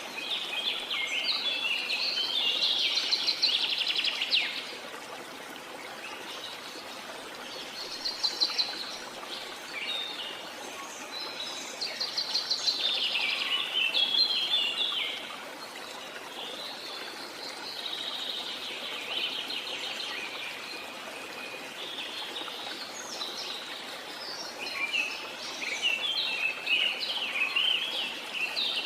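Birds singing in bursts of rapid, high chirping every few seconds, over the steady rush of a waterfall.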